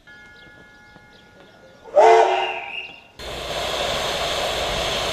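A steam locomotive's whistle gives a short blast about two seconds in and fades off. Then a steady hiss of escaping steam from a standing steam tank locomotive takes over suddenly and lasts to the end.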